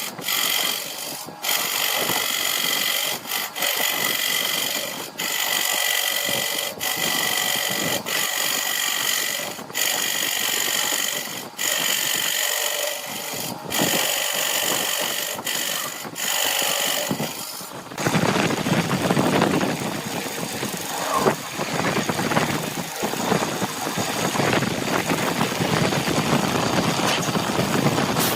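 Wood lathe spinning an epoxy-resin blank while a turning tool cuts it: a steady high whine broken by short gaps. About eighteen seconds in, it changes to a rougher, noisier cutting or sanding sound.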